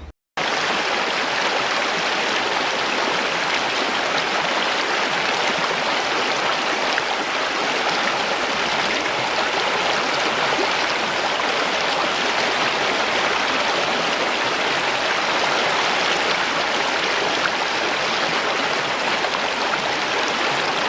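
Stream water running steadily: a continuous, even sound of flowing water that starts abruptly just after the beginning.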